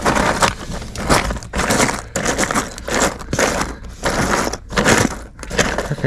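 A hand rummaging through a cardboard box full of plastic trim clips, the clips clattering and scraping in irregular bursts.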